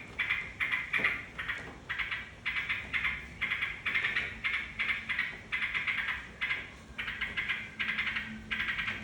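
Sooty-headed bulbul (trucukan) singing: a steady run of short, rapid chattering phrases, about two a second, in a continuous stream. It is a lure song meant to set other birds singing.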